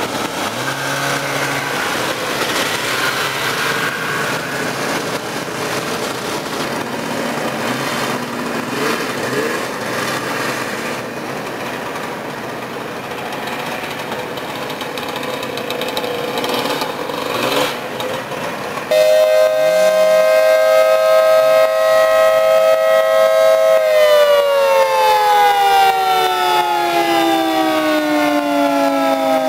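Vintage snowmobile engines running and revving as the sleds ride past. About two-thirds of the way in, a louder whine starts abruptly, holds steady for a few seconds, then slowly falls in pitch.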